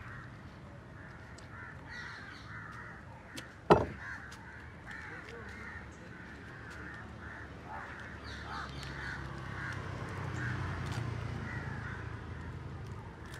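Crows cawing repeatedly. A little under four seconds in comes one sharp knock: the long fish knife being set down on the wooden cutting table.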